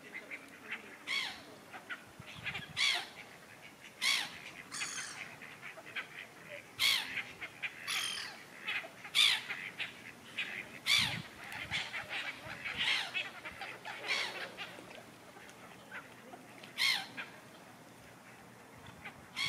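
Birds calling: about a dozen short, separate calls at irregular intervals over a quiet background.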